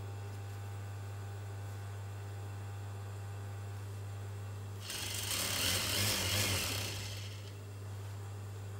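Juki industrial sewing machine: its motor hums steadily, then about five seconds in the machine runs for roughly two and a half seconds, stitching through the fabric, before settling back to the hum.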